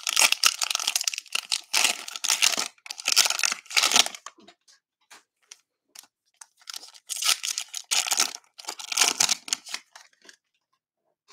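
Cellophane wrapper of a trading-card cello pack being torn open and crinkled by hand, in two spells of a few seconds each with a short lull of faint ticks between.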